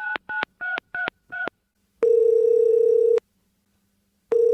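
Phone keypad tones as a number is dialled, about four beeps a second, ending about a second and a half in. Then the ringback tone of the call ringing at the other end: one ring of about a second, a pause, and a second ring starting near the end.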